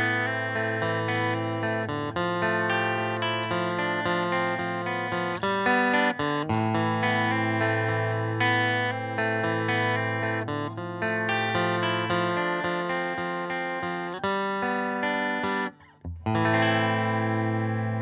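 Strat-style electric guitar with Radioshop ID:Evolution single-coil pickups, playing chords and picked notes through a dry, hand-wired 10-watt Vyse amp. The playing breaks off briefly near the end, then a last chord rings out and fades.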